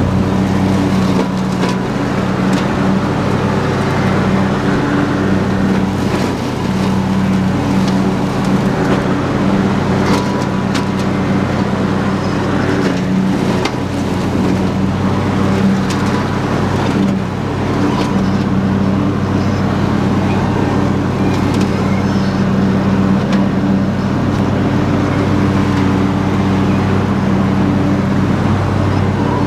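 Husqvarna YTH22V46 lawn tractor's V-twin engine running steadily under the load of its mower deck cutting tall grass and weeds, with a few sharp knocks and ticks over the even drone.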